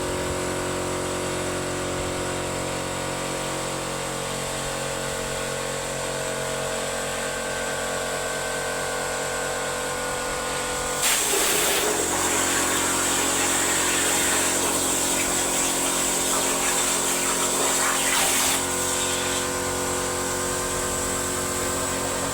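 CNC plasma cutting machine running: a steady machine hum made of many fixed tones. About halfway through, a loud hiss starts suddenly as the plasma torch fires, then cuts off a few seconds before the end, leaving the hum.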